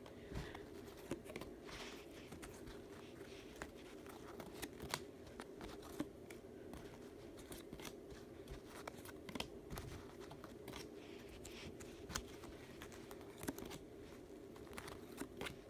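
Faint scattered clicks and rustles of trading cards being handled and slid through by hand, over a steady low hum.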